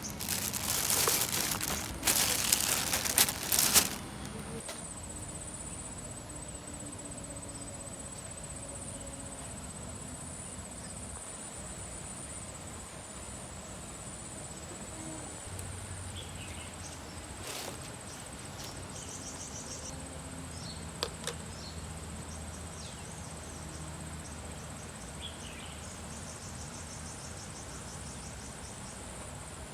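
A loud noisy rush for the first four seconds, then a steady high insect chirring with short pulsed trills, over an even outdoor background.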